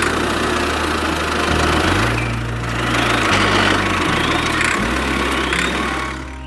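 The homemade mini truck's small engine running steadily, swelling around the middle and dying away near the end, over background music with a stepping bass line.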